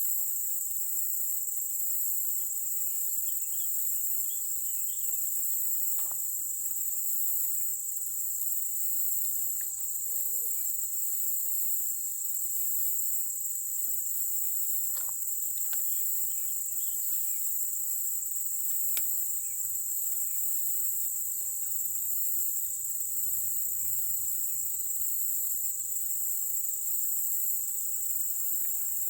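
Steady high-pitched chorus of insects, with a few faint clicks now and then.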